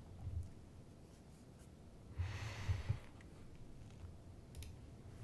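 Quiet room with a low steady hum; about two seconds in, a person breathes out audibly for under a second, and a couple of faint clicks follow near the end.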